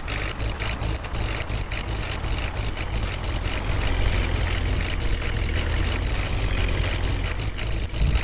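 Heavy diesel engine running steadily with a deep rumble, from the machinery pulling vehicles out of water.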